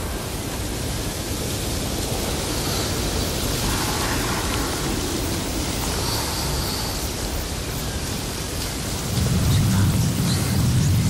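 A steady rushing noise that swells slowly, with a deep rumble joining about nine seconds in and growing louder.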